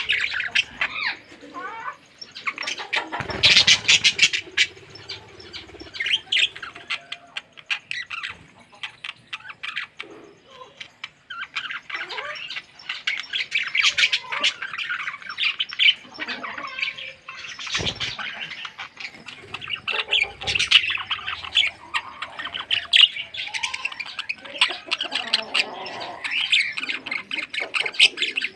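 A flock of pet birds chirping and squawking in a busy, continuous chatter of short high calls, with a couple of dull thumps, one about three seconds in and one midway.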